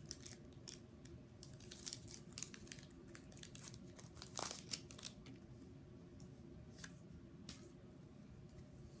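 Faint crinkling and light tearing of a foil booster-pack wrapper of Pokémon trading cards being handled and opened: quick scattered crackles, busiest in the first five seconds, then sparser.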